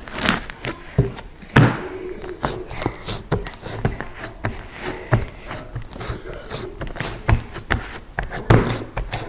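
Fluffy slime made from white glue, shaving cream, liquid starch and Model Magic being squished and pressed flat by hand, giving irregular crackling pops and squelches.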